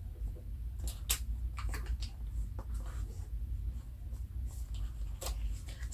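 Cardboard packaging of a laptop being handled and opened: scattered short scrapes, rustles and clicks over a steady low hum.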